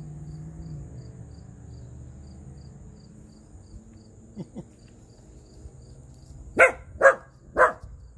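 Dog barking three times in quick succession, about half a second apart, near the end, at a garter snake on the driveway.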